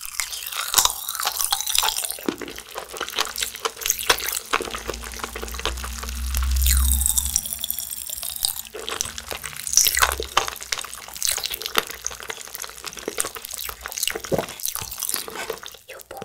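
Popping candy crackling in the mouth while a candy-coated fruit jelly is chewed: a dense, irregular run of small wet pops and clicks.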